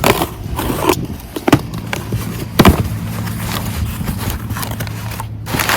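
Rustling and clacking as packaging and small bagged hardware parts are handled, with a few sharp knocks in the first three seconds and a steady low hum from about halfway.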